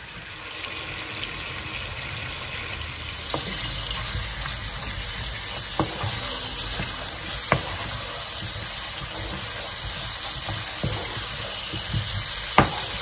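Small potatoes in a frying pan hissing and bubbling as the last of their cooking water boils off in the fat, with a few sharp knocks of a wooden spatula against the pan as they are stirred.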